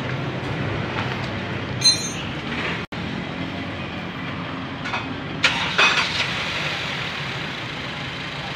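Clicks and clinks of hand tools and plastic fittings as a car's in-tank fuel pump module is worked apart by hand, over a steady low hum. A sharp metallic clink comes about two seconds in and a short run of clicks around five and a half to six seconds.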